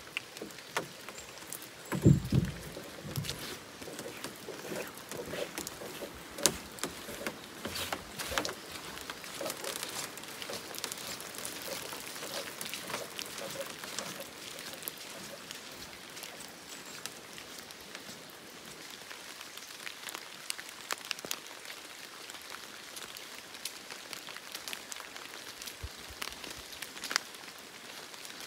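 Steady rain falling in the forest, with many drops tapping close by and one loud thump about two seconds in.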